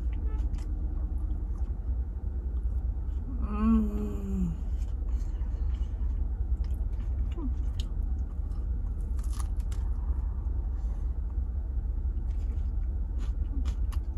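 A person chewing and crunching a fried Korean corn dog coated in crispy potato cubes, with a hummed 'mmm' of enjoyment about four seconds in. A steady low rumble runs underneath.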